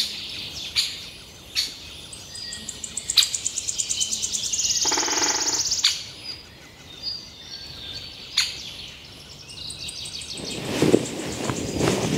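Wild birds chirping and calling, with a fast trill a few seconds in and a harsher buzzy call in the middle. A broad rushing noise, like wind, builds near the end.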